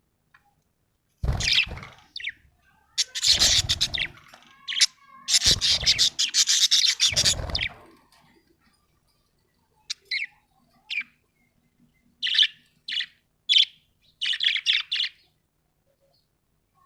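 Budgerigar chirping: bursts of rapid, busy chatter for the first several seconds, then after a pause a run of short separate chirps.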